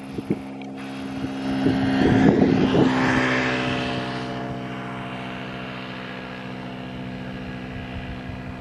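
Boeing 747 freighter's four jet engines on final approach, a steady droning hum with a rushing roar that is loudest about two to three seconds in and then eases off. Wind buffets the microphone in the first few seconds.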